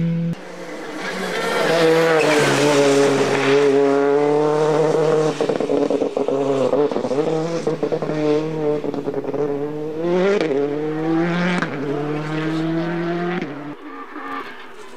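Rally car engine running hard on a stage, its pitch rising and dropping back several times as the driver goes through the gears and on and off the throttle, with some tyre squeal. The sound cuts sharply just after the start and drops away near the end.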